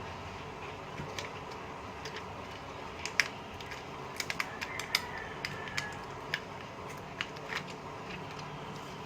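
Small sharp clicks and ticks, irregular and a dozen or so, of plastic prying tools working along the edge of a Samsung Galaxy J5 Prime's screen to separate it from the frame. They sit over a steady background hum.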